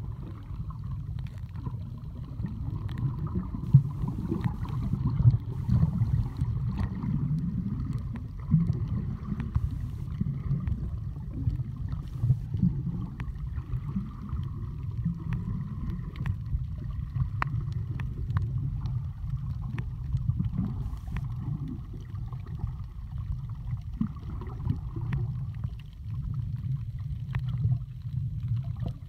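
Underwater sound picked up by a submerged camera: a muffled low rumble of moving water, swelling and easing, with scattered sharp clicks throughout.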